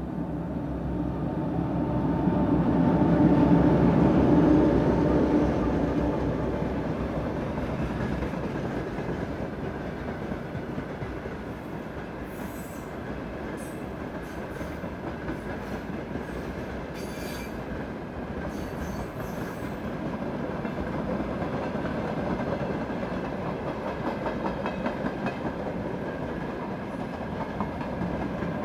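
2M62U two-section diesel locomotive, with its two-stroke 14D40 diesels, passing loudest a few seconds in, followed by a freight train's wagons rolling by with wheels clattering over the rail joints and a few short sharp metallic clicks.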